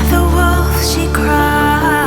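Background music: a steady deep bass under held, sustained notes, with a brief whooshing sweep a little under a second in.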